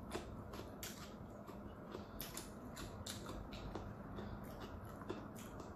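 Close-up chewing of a dumpling: soft, wet mouth clicks and smacks at an irregular few per second, over a faint steady hum.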